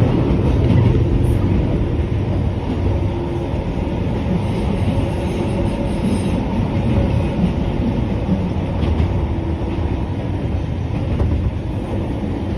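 Eizan Electric Railway train running steadily on the Kurama Line, heard from inside the front car: a continuous rumble of wheels on rail and running gear.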